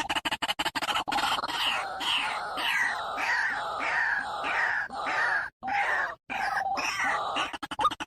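A bird calling in a fast series of harsh, falling squawks, about two a second. Two short breaks come midway, and pulsing background music plays in the first second.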